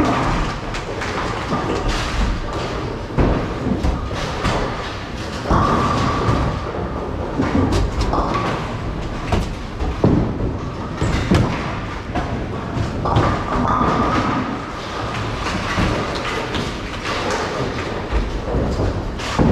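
Bowling alley sound: bowling balls rolling on the lanes with a steady rumble, and pins being struck, with many sharp thuds and crashes scattered through.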